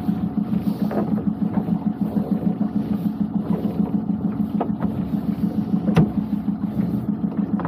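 Small fishing boat's engine running steadily, a low, even throb, with a single sharp knock about six seconds in.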